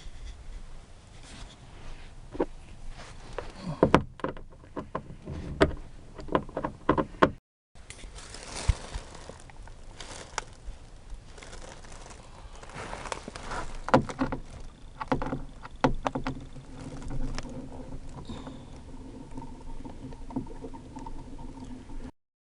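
Hands working on a 2005 Kia Sedona's interior door trim panel: irregular sharp plastic clicks and knocks with scraping and handling noise, as the panel and its trim clips are worked loose.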